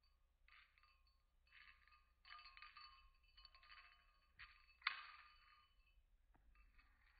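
Faint metallic jingling in short bursts, with one sharper, louder clink about five seconds in.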